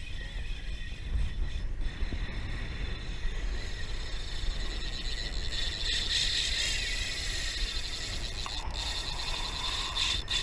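Fishing reel ratcheting steadily as line is worked on a hooked shark, over a low rumble of wind on the microphone.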